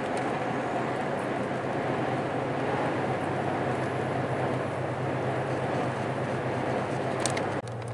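Inside the cab of a lorry at motorway speed: a steady low engine drone under constant hiss of tyres and road on wet asphalt. The sound changes abruptly near the end, quieter with a steadier hum.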